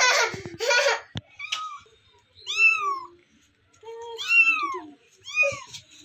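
A young kitten meowing three times, each a short, high call that rises and falls in pitch.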